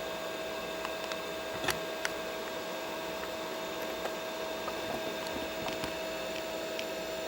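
Vintage desktop PC running steadily under a benchmark load: a constant hum of fans and drives with a steady whine, and a few faint clicks.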